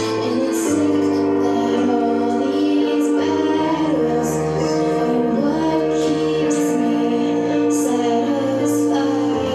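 A song with a female voice singing over held chords and a bass line that steps from note to note every second or two.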